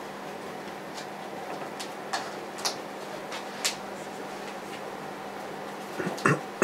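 A paintbrush working oil paint on canvas and palette: a few short, scattered taps and scrapes, roughly one a second, over a steady room hum.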